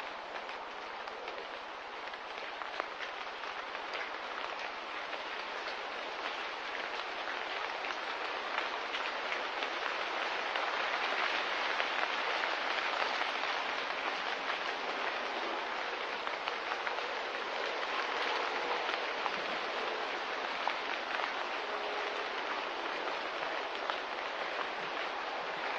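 Steady rain-like hiss sprinkled with fine crackles, swelling slightly toward the middle.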